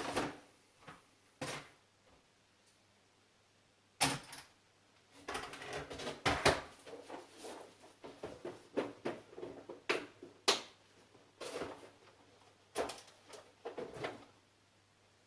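Irregular knocks, clicks and clatter of tools and metal parts being handled, with a busy cluster of rattling clicks about five to seven seconds in.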